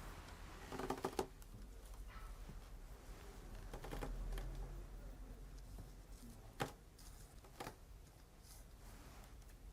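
A few light, sharp taps and clicks, spaced a second or more apart, over a faint low hum.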